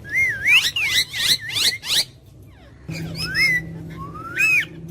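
Pet parrot chattering and whistling in quick warbling, gliding notes, then after a short pause a few more whistles, one rising sharply near the end. A low steady hum starts about three seconds in.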